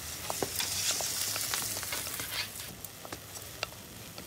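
Food sizzling in a hot frying pan, with scattered sharp pops and crackles. It is louder for the first two or three seconds, then settles to a quieter sizzle.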